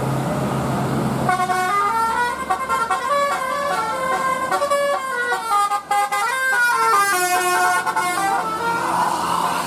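Andara bus's multi-tone telolet horn playing a quick melody of stepping notes, starting about a second in and stopping near the end, over the bus's engine and road noise.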